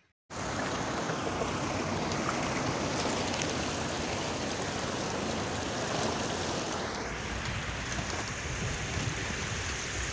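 Water rushing and splashing around a 4x4's wheels as it drives through a shallow, rocky stream, heard as a steady, dense rush that starts suddenly just after the beginning.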